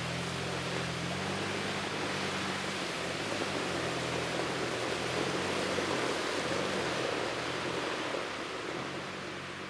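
Mitsubishi Pajero Sport's engine working hard as its spinning wheels churn through deep mud, over a steady rush of mud and slush being thrown up. The sound eases off a little near the end as the SUV pulls away.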